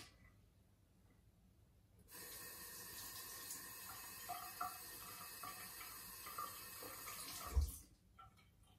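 Bathroom tap running into a sink, a steady stream of water starting about two seconds in and running for about five seconds, with small splashes in it. It stops with a short thump.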